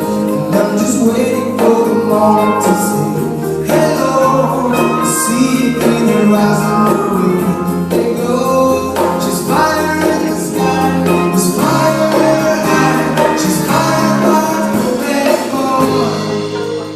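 Music with singing over a bass line.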